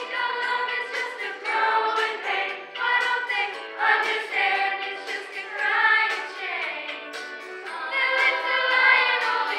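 A high-school choir singing together.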